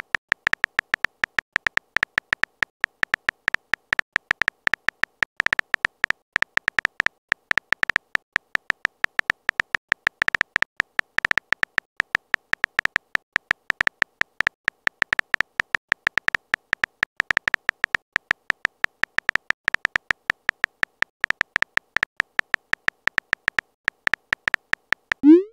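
Texting Story app's keyboard typing sound effect: a rapid, uneven stream of short bright clicks, several a second, as the message is typed out letter by letter. Right at the end a rising swoosh begins as the message is sent.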